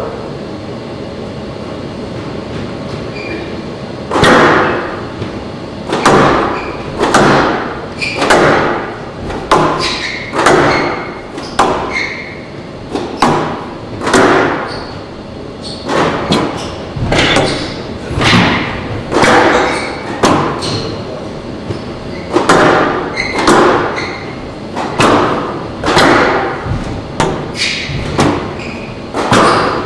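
Squash rally: the ball struck by rackets and hitting the court walls, a sharp hit about once a second, each echoing in a large hall. The rally starts about four seconds in, after a stretch of low hall noise.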